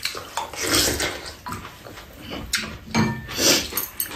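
Eating sounds at a meal: wet, noisy slurping and chewing of bean sprout and egg soup and food, in irregular bursts, with a few light clicks of chopsticks and spoons.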